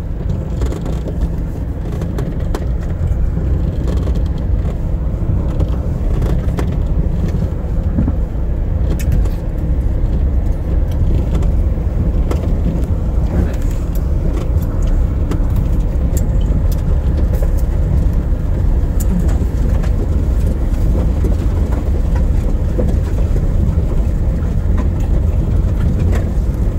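A vehicle driving over a rough, rutted dirt road: a steady low rumble with frequent short knocks and rattles from the bumps.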